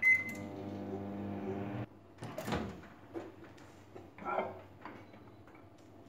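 Samsung microwave oven beeps once as it starts, then runs on high power (900 W) with a steady hum that cuts off suddenly after nearly two seconds. A few clicks and knocks follow as the oven door is handled and opened.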